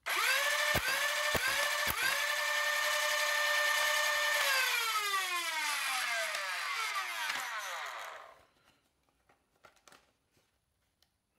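Nerf Stryfe flywheel motors spinning up to a steady high whine, with three sharp clacks about half a second apart as darts are fired, each briefly dragging the pitch down. Then the motors spin down, the whine falling steadily in pitch until it dies away.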